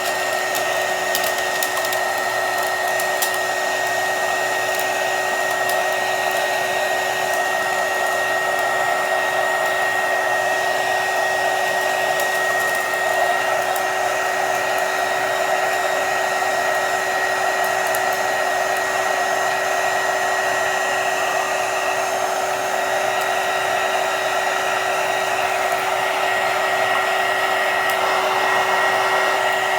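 Handheld heat gun running steadily, blowing hot air to shrink the wrap onto a sublimation tumbler, with a constant fan noise and a steady high whine.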